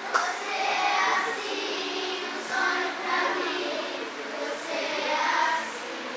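A group of children singing together in three phrases with short pauses between, after a sharp click at the start.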